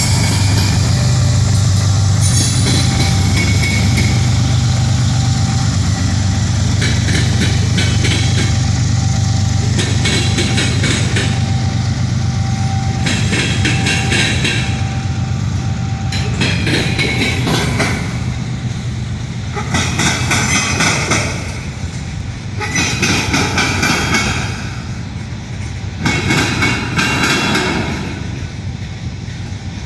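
Union Pacific train rolling past with a steady low rumble of its wheels on the rails. In the second half, the wheels clatter over the rail joints, swelling and fading about every two and a half seconds.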